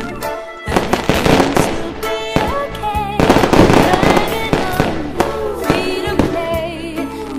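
Fireworks bangs and crackles mixed into a song with a singing voice, with the crackling densest about halfway through.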